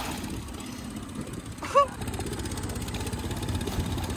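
Outboard motor on a small inflatable tender idling with a steady low rumble, and a short voice call a little under two seconds in.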